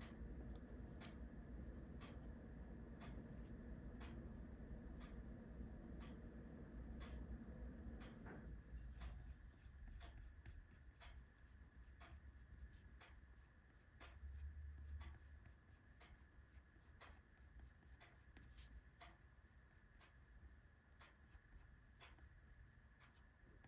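Faint scratching and ticking of a coloured pencil crayon on cheap scrap paper as it lays down shading.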